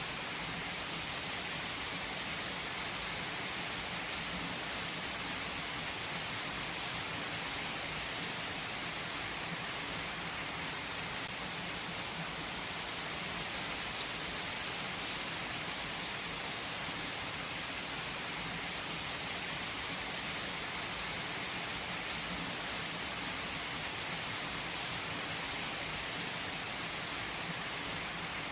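Heavy rain falling steadily on leaves, an even hiss with scattered drop ticks.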